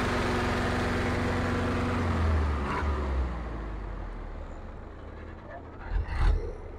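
Belarus tractor's diesel engine working hard under load as it drags a disc harrow, its note dropping about two seconds in and then fading as it pulls away. A couple of short dull thumps near the end.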